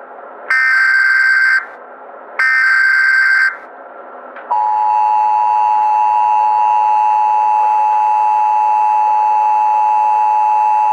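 Emergency Alert System header: the end of one burst of screechy digital data tones, then two more, each about a second long. About four and a half seconds in, the two-tone EAS attention signal starts, a steady harsh dual tone held without a break.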